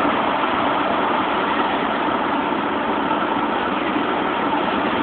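Steady rush of wind and road noise inside a moving car with a side window open.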